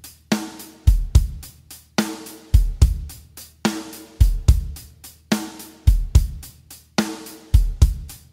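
Drum-only backing track playing the Greek exari rhythm in 6/8 at 72 BPM. One bar repeats about every 1.7 seconds: a pitched drum hit, then two deep bass-drum beats, with quick high ticks between.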